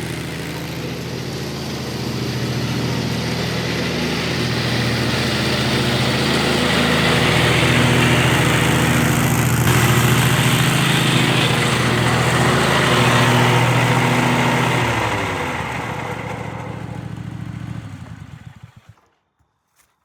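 Dixie Chopper Silver Eagle zero-turn mower running while mowing, a steady engine hum under a loud whirring noise that swells in the middle. It then fades out to silence near the end.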